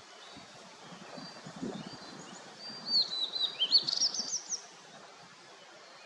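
Blue-and-white flycatcher singing one phrase of clear whistled notes about three seconds in: a few falling notes, then a quick run of rising ones. Fainter chirps of other small birds come before it, over a low steady background noise.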